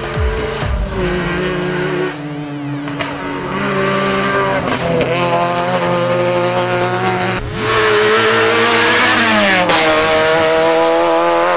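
Peugeot 206 rally car's engine running at high revs, its pitch jumping up and down with the gear changes and gliding down about nine seconds in, with gravel noise from the tyres.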